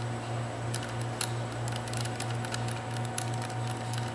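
Hand hex screwdriver snugging a screw down into the plastic housing of a cable tie tool: scattered small clicks and ticks of the driver tip and screw, over a steady low hum.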